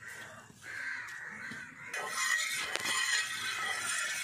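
Groundnut oil hissing and sizzling as it heats in a black iron pan over a wood fire. The hiss swells about two seconds in, and a single crackle comes a little later.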